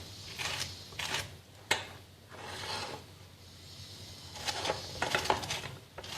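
Orange peel being grated on a hand grater: a series of short scraping strokes, with a pause of about a second and a half in the middle before the strokes resume.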